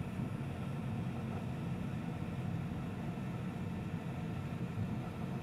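Steady low hum with an even hiss, unchanging throughout and with no distinct event: a machine or fan running in the background.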